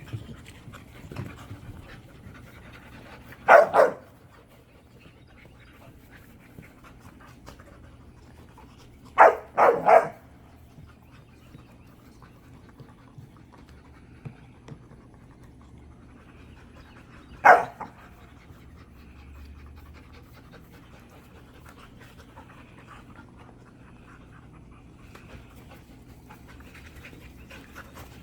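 Dogs panting, broken by short loud barks: two in quick succession a few seconds in, three more about ten seconds in, and a single bark past the middle.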